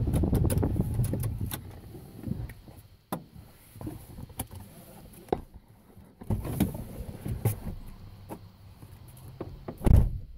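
Low rumble inside a pickup truck cab for about two seconds, then scattered clicks and knocks as someone moves about and climbs out, ending with a loud thump of the truck's door shutting just before the end.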